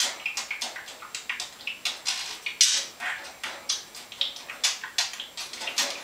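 Budgerigar chattering: a rapid, uneven run of scratchy clicks and raspy bursts, several a second.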